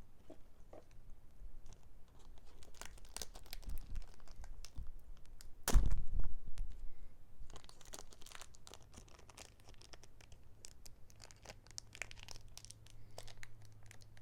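Foil booster-pack wrapper being torn open and crinkled, with a loud thump about six seconds in.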